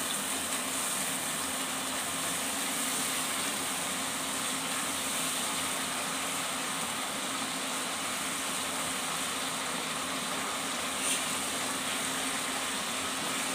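Onion paste and chilli powder sizzling steadily in hot oil in a kadai as it is stirred with a spatula, with one brief tap near the end.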